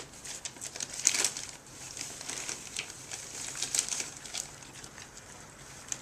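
Christmas wrapping paper crinkling and rustling in irregular bursts as micro pigs tug and chew at a wrapped present, the loudest burst about a second in.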